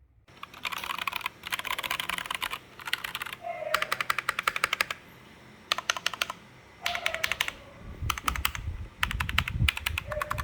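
Typing on an AULA F3068 mechanical keyboard with pink switches: rapid key clacks in bursts with short pauses between them, heavier and thuddier in the last couple of seconds.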